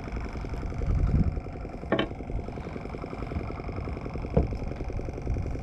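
An engine running steadily at low speed, with two short clicks or knocks about two seconds and four and a half seconds in.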